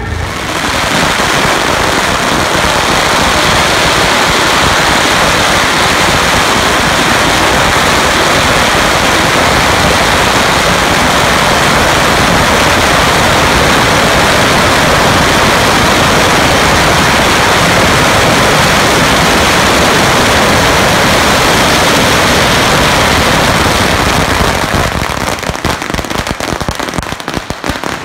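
A large spread of boxed firecrackers going off together on the pavement, making a dense, unbroken crackle of bangs. Near the end it thins out into scattered separate cracks.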